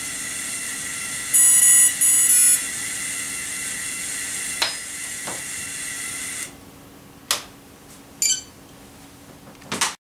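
Scorpion 160A opto ESC beeping through the helicopter's brushless motor, a quick group of high beeps confirming 0% throttle in the calibration routine. A steady background hum cuts off about two-thirds of the way in, and a few sharp handling clicks follow as the system is powered off.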